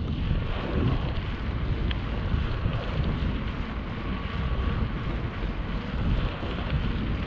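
Wind buffeting the microphone of a camera on a moving bicycle: a steady rush with uneven low gusts.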